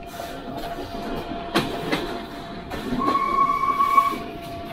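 Passenger train running along the track: wheels knock sharply over rail joints a couple of times under steady running noise, with a faint steady whine. Just past the middle, a high-pitched tone rings out steadily for about a second.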